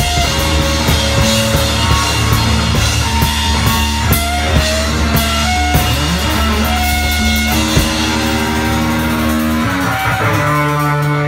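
Live rock band playing: electric guitar, electric bass and drum kit with cymbal strikes, over a steady bass note. Near the end the band's sound changes as the bass note drops away and a held chord rings.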